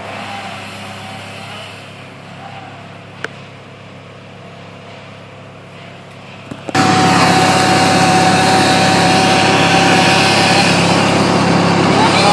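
A small engine hums in the background. About two-thirds of the way in, a two-stroke chainsaw starts running abruptly at full throttle, loud and steady, with a held high tone.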